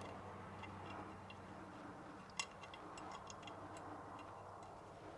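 Light, irregular clicks and ticks of small parts and a hand tool being handled while wire connections are made up inside an electric motor's rear housing, with one sharper click about two and a half seconds in, over a faint steady low hum.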